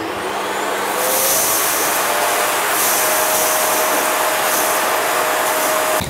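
Midea canister vacuum cleaner running with its floor brush on carpet. The motor comes up to speed over the first second with a rising whine, then holds a loud, steady suction rush that cuts off suddenly at the end.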